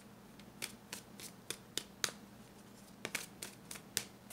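Tarot cards being handled and shuffled: about a dozen sharp, irregular snaps and slaps of the cards, in two loose clusters.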